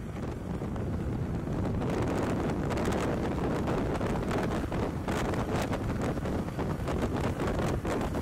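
Eurocopter EC135 helicopter landing close by: steady rotor and turbine noise, with the rotor downwash buffeting the microphone as heavy wind noise. It grows louder over the first couple of seconds and then holds.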